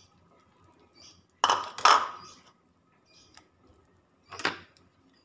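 Kitchenware knocking against a stainless steel cooking pot while sliced carrots are tipped in and stirred: a loud double clatter about a second and a half in, and another single knock near the end.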